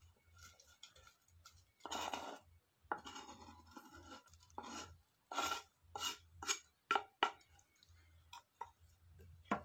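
Chopped ingredients for a herbal remedy (palm sugar, ginger and lemongrass) being put into a pot by hand: a string of irregular short clatters and rustles, about ten in all, two of them longer.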